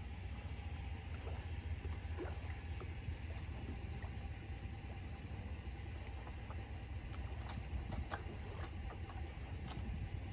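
Low steady rumble, typical of a pickup idling on the launch ramp, with scattered faint clicks and ticks as the trailer's hook is undone from the boat's bow.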